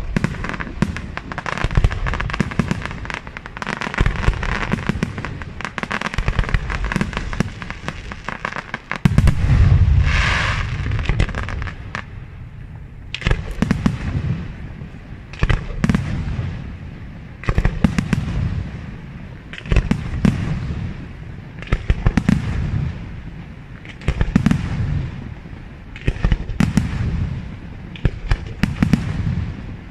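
Aerial fireworks shells bursting one after another, with deep booms and crackling. A dense, loudest barrage comes about a third of the way in, and after that the bursts come roughly every two seconds.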